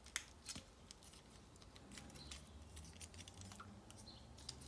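Faint, scattered clicks and taps of a Bandai Metal Robot Spirits Gundam Barbatos Lupus Rex action figure being handled, its jointed parts moved about in the hands.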